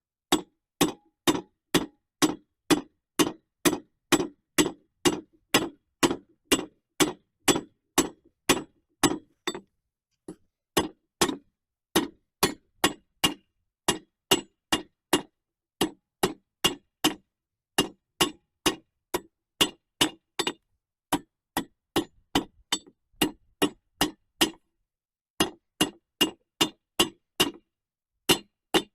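Hand hammer forging hot iron on the anvil face of a small cast-iron combination vise, making a nail: steady ringing blows at about two a second, with a few brief pauses.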